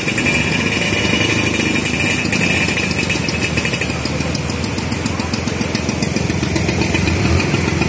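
Several classic Vespa scooters' two-stroke engines running steadily as the scooters are ridden through a shallow, rocky stream.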